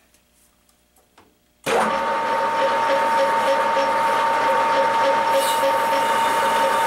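Metal lathe switched on about a second and a half in, its motor and headstock gearing then running steadily with a constant whine and an even mechanical pulsing.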